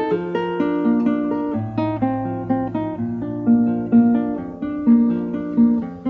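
Background music: an acoustic guitar picking a run of notes, several a second.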